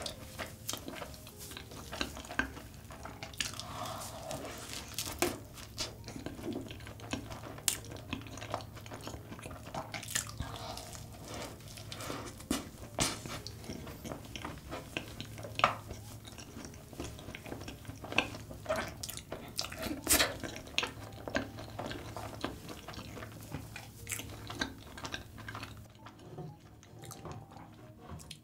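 Close-up chewing and biting of large custard-cream puffs drizzled with melted Nutella chocolate. Soft wet mouth sounds are broken by many irregular small crackles and clicks.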